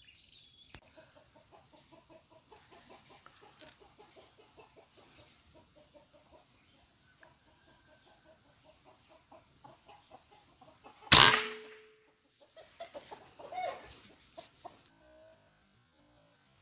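Rapid run of short fowl-like clucking notes for about ten seconds, then a single sharp shot from a PCP air rifle about eleven seconds in, followed by a few scattered knocks and rustles. A steady high insect drone runs underneath.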